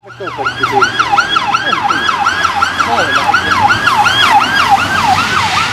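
Fast yelping siren on a rally zero car (a Škoda Karoq with a roof light bar) passing on a gravel stage, sweeping down in pitch about three times a second. It fades in over the first half-second and stays loud.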